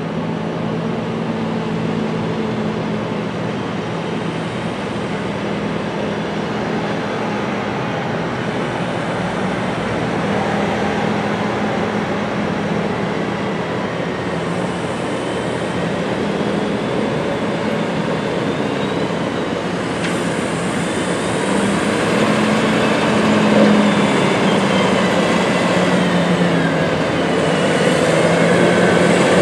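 McCormick X8.760 tractor's diesel engine running steadily as it hauls a loaded Penta DB40 silage trailer, growing gradually louder as it approaches.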